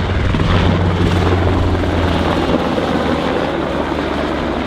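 MH-60R Seahawk helicopter flying by, its rotor and twin turboshaft engines making a loud, steady low drone that eases off about halfway through.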